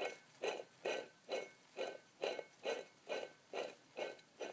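Old water pump from a 1998 Jeep Cherokee XJ 4.0L, turned by hand off the engine, making a rough rhythmic noise about twice a second. The owner believes this pump noise was the cause of his engine noise.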